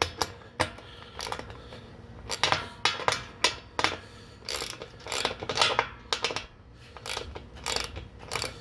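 Hand socket ratchet clicking in short runs of strokes as a bolt is tightened snugly with a 10 mm socket.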